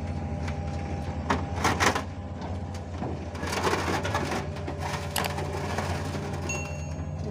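Mini excavator's diesel engine running steadily while the machine is driven down off a truck bed, with metal clanks and knocks from its tracks and boom several times, and a thin whine near the end.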